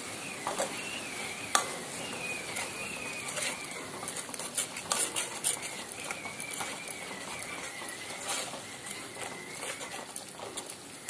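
Metal spatula scraping and knocking against a metal kadai in uneven clicks and scrapes while stirring a thick onion-and-spice masala paste.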